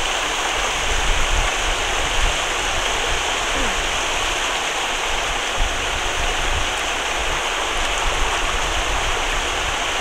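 Steady rush of flowing water: a constant, even noise with irregular low rumbling underneath.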